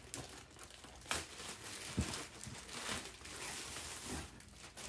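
Packaging rustled and crinkled by hand as a package is searched through, with a couple of sharp handling clicks about one and two seconds in.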